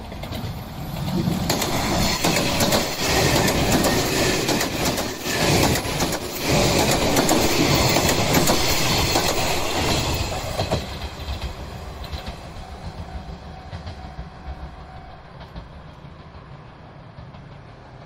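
381-series Yakumo limited express electric train passing close at speed, its wheels clattering over the rail joints. The sound builds about a second in, stays loud for roughly nine seconds, then fades as the train moves away.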